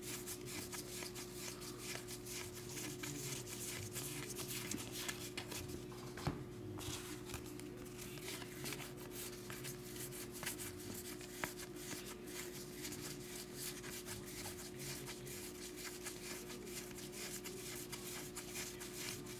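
Topps Heritage baseball cards being flipped through by hand, one card slid off the stack after another, giving soft papery rubs and many light clicks, over a steady low hum.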